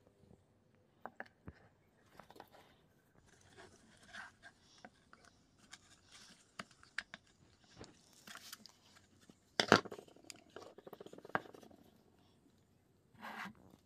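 Handling noises from a plastic wheelchair footrest being worked on by hand: scattered clicks and knocks, and a metal tool scraping and prying at the metal sleeve in its hinge socket. The loudest is a sharp knock about ten seconds in, followed by a second or so of scraping.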